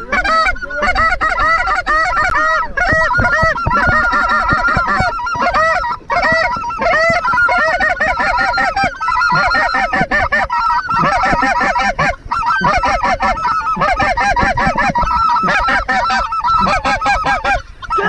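A large flock of snow geese calling, many high honks overlapping in a constant clamour, with brief lulls about six and twelve seconds in.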